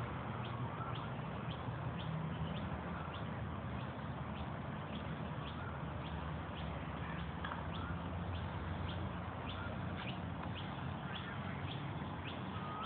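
Outdoor ambience: a steady low rumble under birds chirping, with a short high tick repeating evenly about twice a second.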